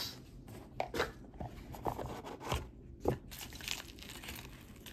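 Hands handling jewelry packaging: quiet rustling and crinkling of wrapping, with scattered light clicks and taps.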